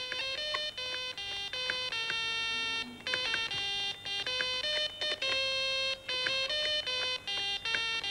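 Homemade one-transistor electronic organ, keyed with eight doorbell buttons and sounding through an output transformer and small loudspeaker, playing a simple tune of beeping notes one at a time, some short and some held. Each key's pitch is set by a trimmer potentiometer tuned to a scale.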